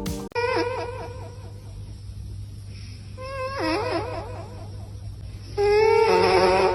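A pet's wavering, crying calls, three times, the last one longest and loudest.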